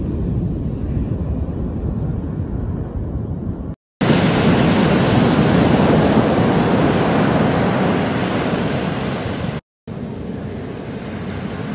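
Heavy shorebreak surf: big waves breaking and crashing in a steady roar of whitewater, with wind buffeting the microphone. The sound cuts out briefly twice, about four seconds in and just before ten seconds.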